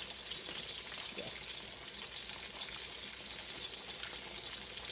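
Salmon fillets frying in hot canola oil in a stainless steel skillet: a steady sizzle.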